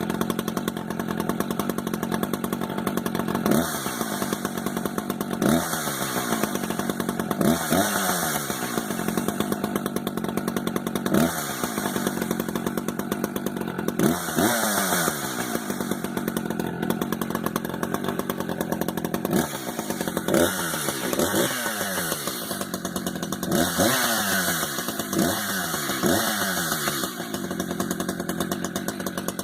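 Echo CS-590 Timber Wolf chainsaw's two-stroke engine running on its first start, idling with about a dozen short blips of the throttle, each rev climbing quickly and falling back to idle, with several quick blips in a row in the last third.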